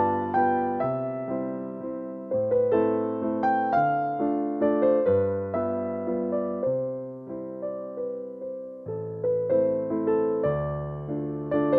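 Background piano music: a gentle melody of struck notes over a bass line that changes every second or two.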